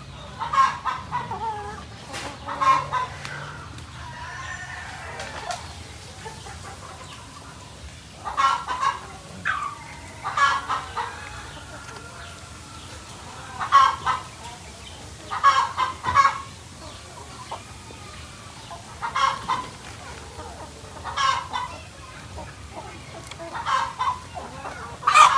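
A flock of layer chickens clucking and calling, with short calls every second or two and a quieter stretch about three seconds in.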